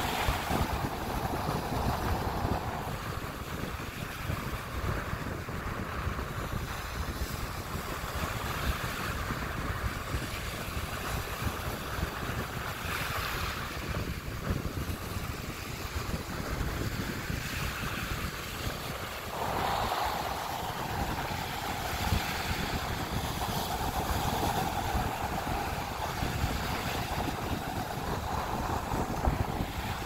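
Small waves of the Sea of Azov breaking and washing up the beach in a steady wash, with wind buffeting the microphone. The surf grows a little louder about two-thirds of the way through.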